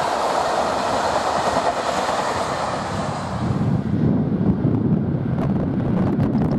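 Intercity passenger coaches rolling past on the track: a steady rushing of wheels on rail. About three and a half seconds in the sound changes to a lower rumble with a few sharp clicks.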